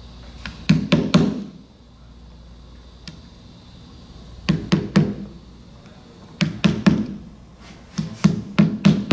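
Hammer striking a wooden wedge to drive rattan spline into the glued groove of a chair-back frame. The blows are sharp wooden knocks in short runs of three or four, with pauses of a second or more between runs, and a quicker run of taps near the end.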